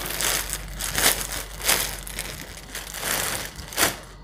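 Garments being handled: uneven rustling and crinkling, with louder rustles about a second in and near the end.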